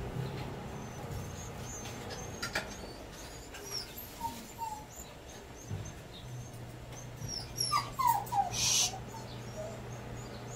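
A dog whimpering: a few short falling whines about eight seconds in, with faint high chirps scattered throughout.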